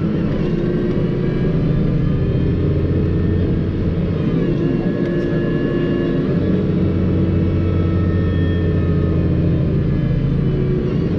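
New Holland T6.180 tractor engine running steadily, heard from inside the cab, with a thin whine above the engine drone. The engine note dips briefly about halfway through, then steadies again.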